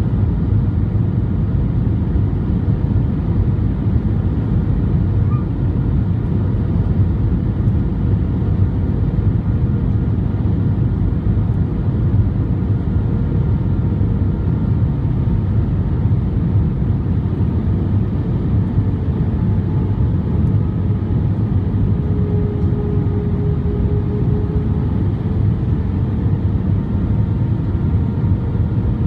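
Steady low rumble of an Airbus A320's IAE V2500 engines and the airflow, heard inside the passenger cabin in flight. Faint steady tones sit above the rumble.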